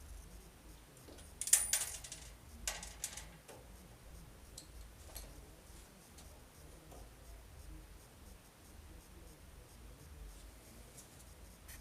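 Small metal parts clicking and clinking as they are handled: a quick cluster of sharp clicks about a second and a half in and another about a second later, then only a few faint ticks.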